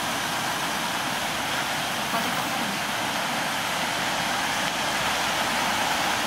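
Shallow, rocky mountain stream running steadily, an even rush of water.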